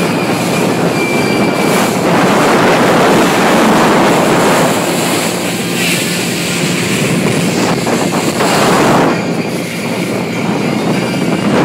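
Mako powerboat running fast: a steady engine drone under loud rushing wind on the microphone and water rushing past the hull.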